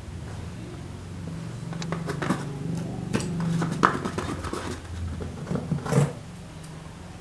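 Slime being handled: a run of sticky clicks and squishes, sharpest about four and six seconds in, over a low steady hum.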